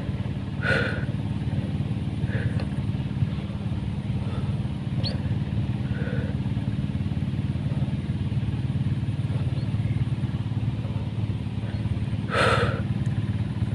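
Steady low drone of a small engine running, a hand tractor working the rice field, with a couple of short soft noises about a second in and near the end.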